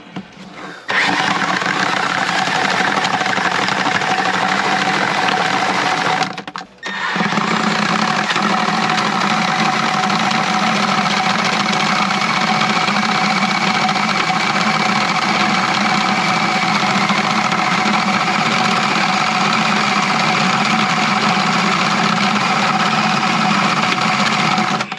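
Milwaukee cordless drill spinning a drum drain auger, feeding its cable into a clogged kitchen sink drain: a steady motor whine. It stops briefly about six seconds in, then runs on until it cuts off just before the end.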